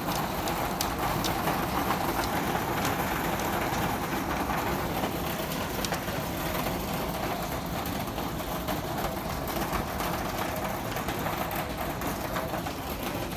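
Hail and rain pelting a patio and lawn, heard from indoors through a window: a steady rushing hiss dotted with many sharp ticks of hailstones striking.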